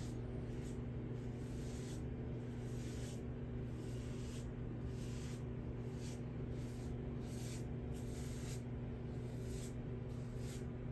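Double-edge safety razors scraping lathered stubble off a scalp in repeated short strokes, about one or two a second, over a steady low hum.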